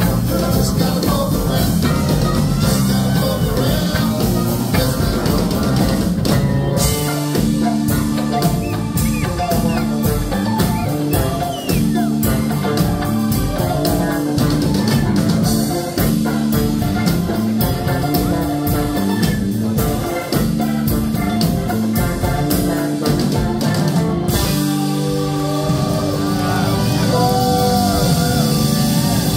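Live rock band playing an instrumental passage on drum kit, electric guitars, bass and keyboards. A fast, even ticking rhythm joins about seven seconds in and drops out around 24 seconds. Near the end a lead line slides through bent notes.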